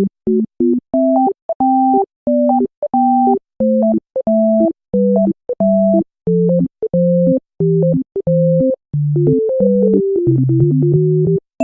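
Background music: a simple synthesizer tune of short, separate notes, each melody note sounding over a lower note, with a quick downward run of notes about three-quarters of the way through.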